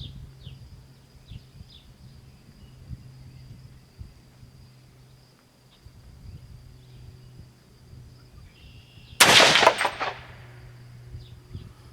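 A single rifle shot from a 16-inch-barrel AR-15 in .300 Blackout, firing Hornady Black 110-grain V-MAX supersonic ammunition. It comes about nine seconds in, and its report rings on for about a second.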